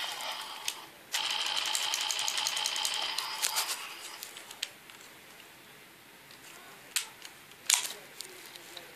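Plastic toy revolver clicking rapidly as its trigger is worked fast, in two quick runs, the second from about one to three seconds in, followed by a few separate clicks, two sharper ones near the end.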